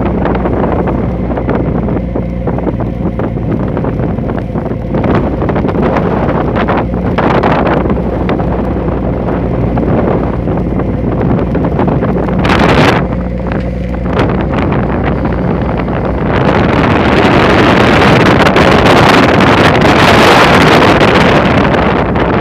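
A boat's motor running steadily amid loud wind buffeting the microphone and rushing water in rough seas. The rush of wind and water swells and grows louder about sixteen seconds in.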